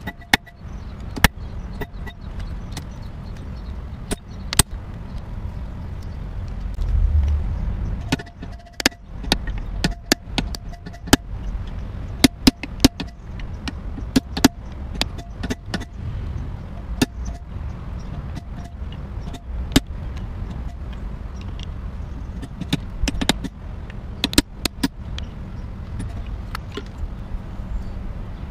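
Irregular sharp metallic clicks and taps of hand tools against a Honda EX5 motorcycle engine's aluminium crankcase as screws on the stator are worked at, over a steady low rumble that swells about seven seconds in.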